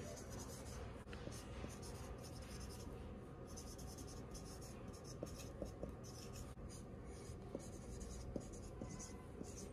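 Dry-erase marker writing on a whiteboard: faint, quick strokes of the felt tip scratching across the board, with a few light ticks as the tip is set down.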